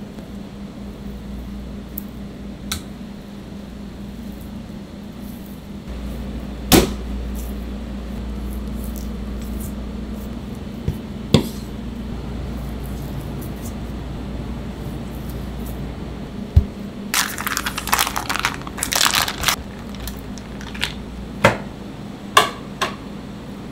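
Knife work on a plastic cutting board as a raw pork loin is trimmed and sliced into thick cutlets: a handful of sharp knocks of blade or meat on the board, several seconds apart, and a couple of seconds of busy scraping and rustling about two-thirds of the way through, over a steady low hum.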